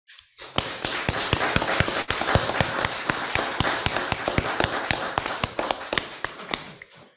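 A congregation applauding: many hands clapping together, starting about half a second in and tapering off near the end.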